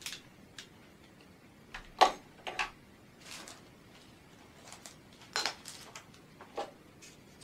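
Small tools and parts being picked up and set down on a wooden workbench: scattered light clicks and clinks at irregular intervals, the loudest about two seconds in.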